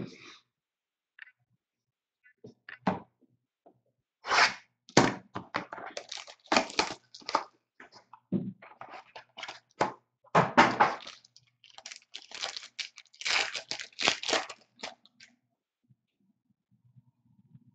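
A trading card box and its foil pack being torn open and handled: a run of tearing and crinkling rustles with knocks, busiest from about four to fifteen seconds in.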